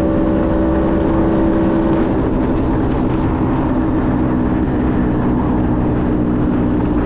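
Motor scooter engine running at a steady cruising speed, with a constant hum, under heavy wind rush on the microphone.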